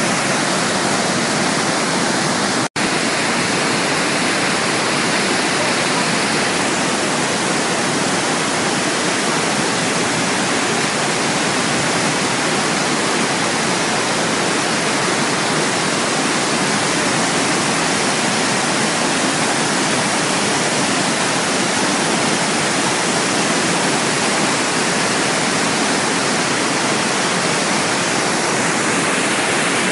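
Roar of Iguazú Falls at the Devil's Throat: a dense, steady rush of huge volumes of water plunging into the chasm. It cuts out for an instant about three seconds in.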